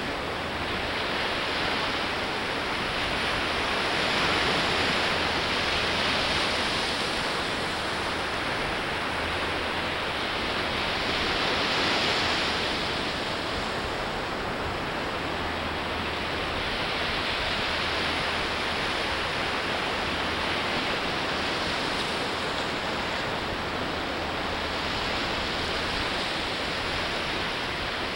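Ocean surf washing onto a sandy beach in a steady rush. It swells louder twice as waves break, about four seconds in and again near the middle.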